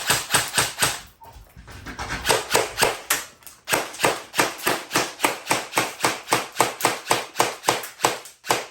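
Airsoft gun fired on semi-auto in rapid succession, sharp cracking shots about four to five a second, with a short break about a second in before the firing resumes.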